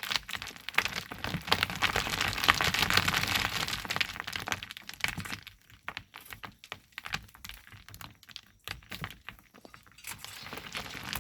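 Volcanic sand and stones crunching and crackling, dense for about five seconds, then thinning to scattered clicks.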